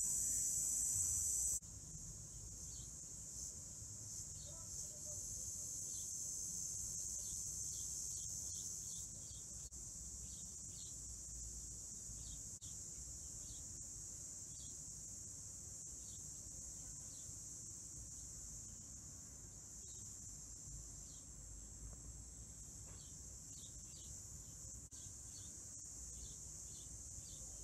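A steady high-pitched insect chorus, cricket-like, with short faint chirps scattered through it; it drops abruptly in level about a second and a half in.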